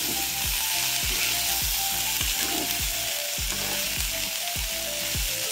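Metal spoon scraping and knocking an aluminium kadai about twice a second as chopped bitter gourd and tomato are stirred, over a steady sizzle of frying oil.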